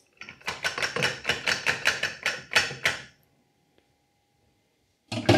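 The wire whisk of a stand mixer being rapped quickly against its glass mixing bowl to shake off cheesecake batter: a fast run of sharp knocks, about six a second, lasting some three seconds. One louder knock follows near the end.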